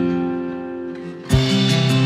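Instrumental background music: a phrase fades down, then a new phrase comes in with a beat a little over a second in.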